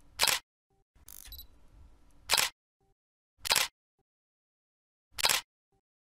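Camera shutter sound effect clicking four times, irregularly about one to two seconds apart, with a quieter rustling stretch before the second click.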